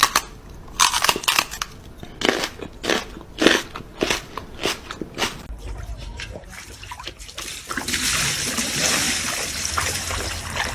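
Crunching chews, about two a second, thinning out after about five seconds, as of an animal biting into something crisp. About eight seconds in, a steady hiss comes in.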